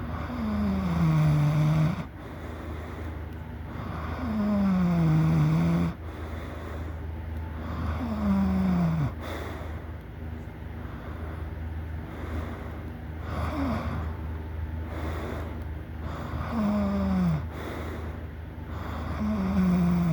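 A person snoring loudly: six snores three to five seconds apart, each a pitched sound falling in pitch as it goes, over a steady low hum.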